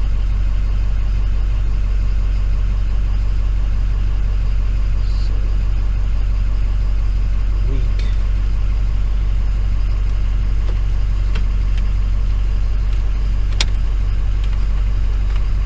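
Ford F250's 6.0-litre Power Stroke V8 turbodiesel idling steadily, a constant low hum. A couple of sharp clicks in the second half, typical of plastic trim pieces snapping into place.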